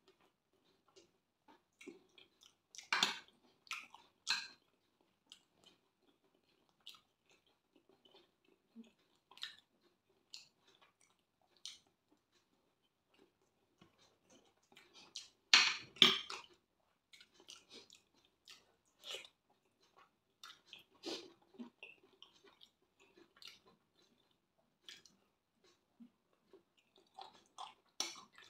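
A person chewing and eating rice and beans with fried plantain and stew: soft, irregular wet mouth sounds and small clicks. Two sharp, louder clicks stand out about halfway through.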